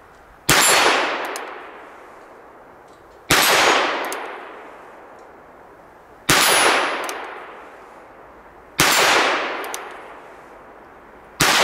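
Five shots from a Ruger Single Six single-action revolver firing .22 Magnum, spaced about two and a half to three seconds apart as the hammer is cocked for each. Each shot is followed by a ringing clang from a steel gong target, fading over about a second and a half.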